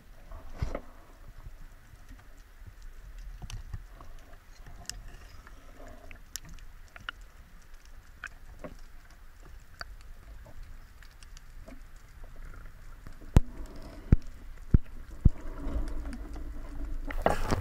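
Underwater sound heard through a diving camera's housing: a low rumble with scattered small clicks and crackles, a few louder sharp clicks about thirteen to fifteen seconds in, and water noise building near the end.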